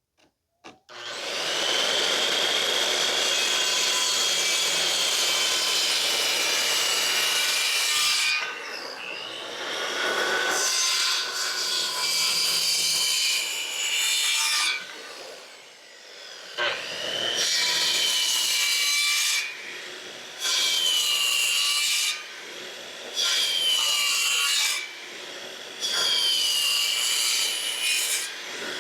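Electric saw cutting wood in repeated passes: one long run, then shorter cuts every few seconds, its motor whine dipping as the blade loads up and rising again as it frees.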